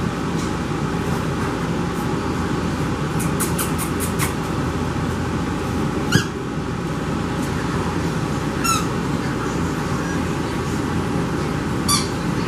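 French bulldog puppies playing with a toy: three short high-pitched squeaks, about six, nine and twelve seconds in, and a quick run of clicks a little after three seconds, over a steady background noise.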